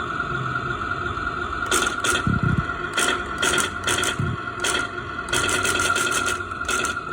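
A 1:16 scale RC Bradley M2A2 toy's sound module playing electronic gunfire effects: short bursts of shots, then a rapid string of about nine shots a second a little past five seconds in, with two low thuds near two and a half and four seconds in. A steady high electronic whine runs beneath.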